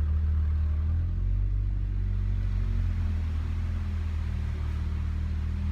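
2008 Honda Fit's 1.5-litre four-cylinder engine running with a loud, steady, low exhaust drone. Its resonator has broken clean off the exhaust piping, which makes the car sound like a hot rod.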